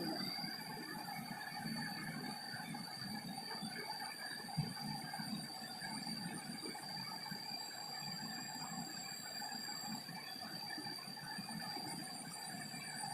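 River water flowing steadily, with a thin high steady tone above it and one soft knock about four and a half seconds in.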